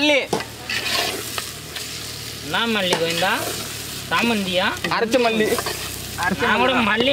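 A perforated metal skimmer ladle stirring and scraping thick spice masala round an aluminium pot over a wood fire, the masala sizzling and frying as the coriander powder goes in. A voice calls out in between.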